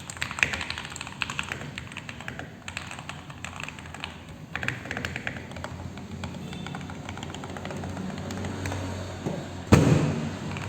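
Typing on a mechanical keyboard fitted with Noir Javanese PBT keycaps (OEM profile, 1.3 mm thick): a steady run of keystroke clacks, with one louder thump near the end.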